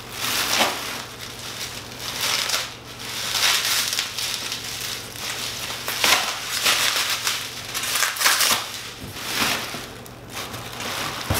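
Clear plastic packing wrap crinkling and rustling in irregular bursts as the parts of a floor corker are pulled out of it and unwrapped.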